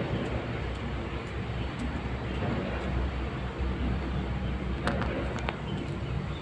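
Steady outdoor background noise: a low rumble under an even hiss, with a couple of light clicks about five seconds in.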